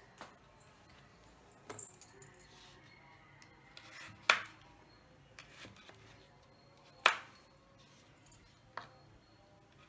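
Kitchen knife chopping through a carrot onto a wooden cutting board: two sharp chops about four and seven seconds in, with a few lighter knocks of the knife and board between them.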